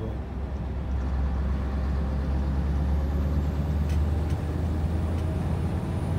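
Scania R730's 16.4-litre V8 diesel engine running with a deep, steady rumble that grows louder about a second in.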